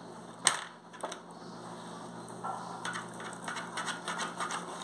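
Wet, sticky crackling and small clicks as fingers peel the membrane off a piece of raw beef liver, with a sharp tap about half a second in and another near the end.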